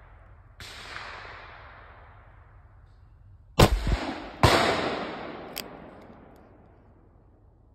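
Two shots from a Pietta replica 1860 Colt Army .44 cap-and-ball black-powder revolver, a little under a second apart, each trailing off in a long echo. A smaller sharp click follows about a second later.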